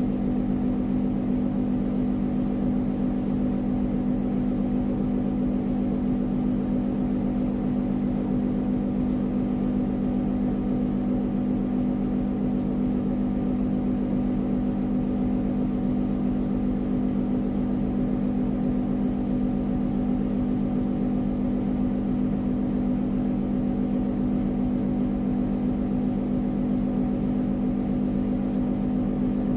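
A steady hum with several even tones that does not change.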